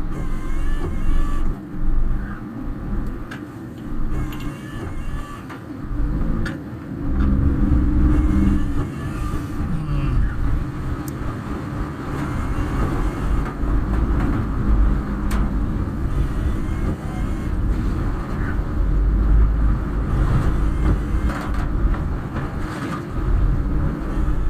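Road noise inside a moving car: a steady low rumble from the engine and tyres that swells and eases as the car drives.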